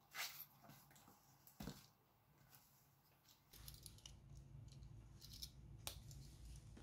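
Quiet handling of a cardboard product box: two brief scrapes of fingers and cardboard in the first two seconds, then a low rumble with scattered faint ticks and taps from about halfway through.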